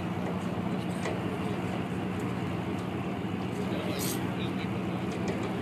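V8 engines of two drag-racing Mustangs, one a turbocharged LSX and one a nitrous Coyote 5.0, running steadily at the starting line before the launch, with a brief hiss about four seconds in.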